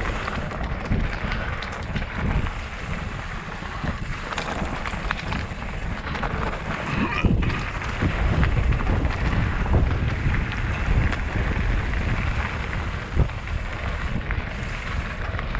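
Wind rushing over a helmet-mounted GoPro's microphone, over the rumble of a Santa Cruz Chameleon hardtail's 27.5+ tyres on dirt trail, with scattered clicks and knocks from the bike.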